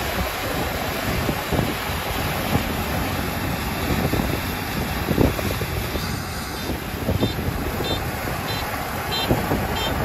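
Kubota combine harvester running and cutting rice, a steady mechanical drone with wind buffeting the microphone. From about seven seconds in, a high electronic beep repeats about one and a half times a second.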